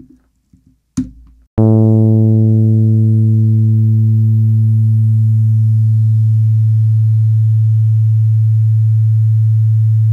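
Synthesized pluck tone made with a discrete summation formula on a low A (110 Hz). It starts about one and a half seconds in, bright with many harmonics. The upper harmonics die away over a few seconds, leaving a steady low tone: the carrier never decays, because the envelope shapes only the sidebands.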